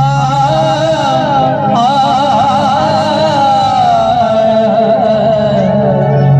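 Loud Maharashtrian banjo-band music played through the group's sound system: an ornamented melody line that wavers with vibrato over a steady bass.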